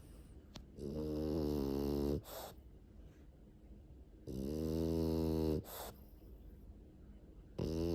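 French bulldog snoring loudly in deep sleep: three long, pitched, rattling snores about three and a half seconds apart, each followed by a short breathy rush of air. The last one starts near the end.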